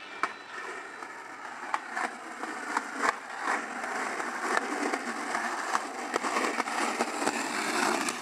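Skateboard wheels rolling on a concrete sidewalk: a steady rolling rumble with a series of sharp clicks at irregular intervals.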